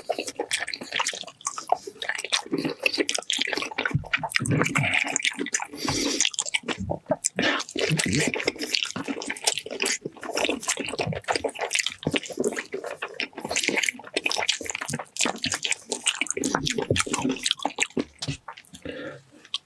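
Close-miked wet eating sounds: a steady stream of sticky smacking, squelching and chewing clicks from someone eating braised beef feet.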